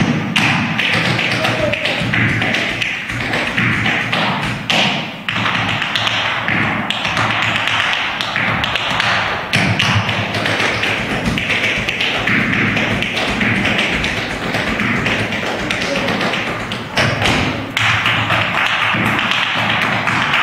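Tap shoes striking a stage floor in fast, dense improvised rhythms, with heavier heel drops among the clicks: two tap dancers trading eight-bar phrases.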